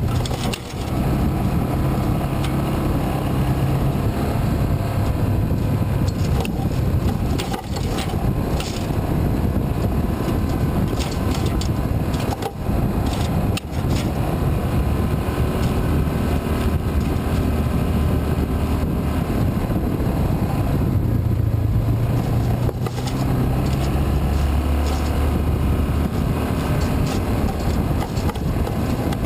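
Yamaha Rhino side-by-side UTV engine running as it drives along a trail, its pitch rising and falling with the throttle, with a few scattered knocks.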